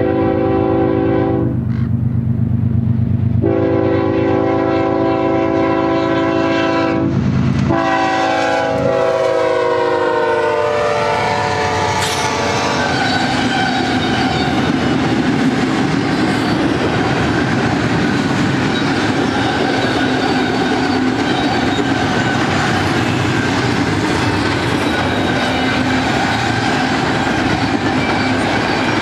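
BNSF GE ES44DC diesel locomotive sounding its air horn in long blasts with short breaks, the chord dropping in pitch as the locomotive goes by about ten seconds in. After that comes the steady rumble and clatter of the double-stack container cars rolling past on the rails.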